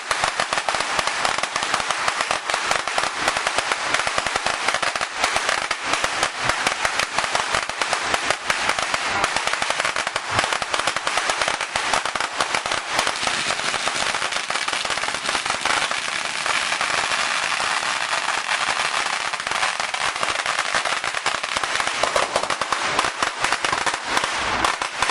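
A long string of firecrackers going off, a dense, unbroken rattle of rapid bangs.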